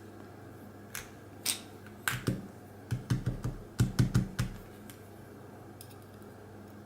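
Small sharp metallic clicks and taps of lock pins and springs being handled while a pin-tumbler lock is taken apart. There is a quick cluster of clicks between about one and four and a half seconds in.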